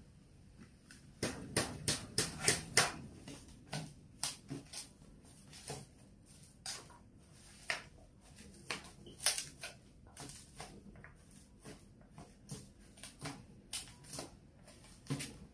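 Chopsticks tossing a leafy salad in a stainless steel bowl: irregular clicks and taps of the sticks against the metal bowl, with the rustle of the greens. A quick run of taps comes between about one and three seconds in.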